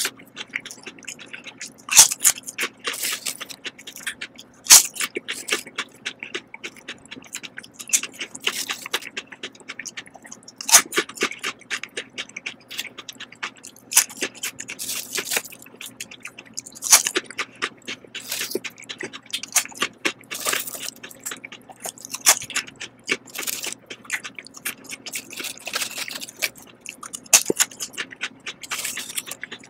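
Close-up crunching and chewing of Lay's Texas BBQ potato chips: sharp, crisp crunches at irregular intervals, louder ones every few seconds, with softer chewing crackle between them.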